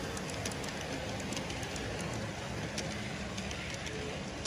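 Garden-scale model train rolling past on its track: a steady rumble of wheels with scattered light clicks.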